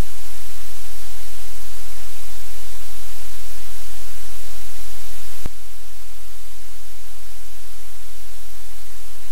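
Loud, steady hiss with a low hum underneath: noise from the live camera's microphone or audio line rather than any sound in the room. A single click comes about five and a half seconds in, after which the hiss is slightly quieter.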